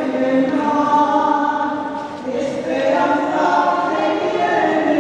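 A choir singing a religious hymn, the voices holding long notes.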